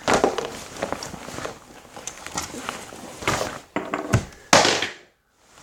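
Handling noise from a fabric shoulder bag being picked up and moved: rustling and scattered knocks, a low thump about four seconds in, then a loud rustle just before the sound cuts out briefly near the end.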